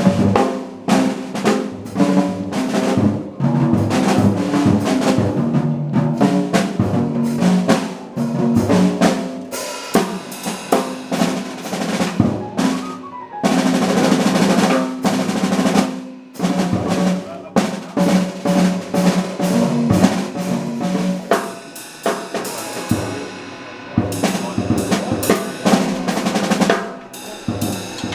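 Drum kit played solo in a sound check: fast rolls and fills on snare, toms and bass drum. Near the end it eases into lighter playing under a ringing cymbal.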